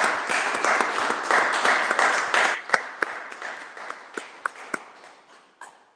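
Audience applauding, dense at first, then thinning to scattered single claps that die away before six seconds.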